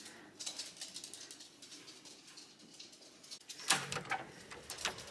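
Parcels and packaging being handled: faint scattered clicks, then a few sharper rustling knocks near the end.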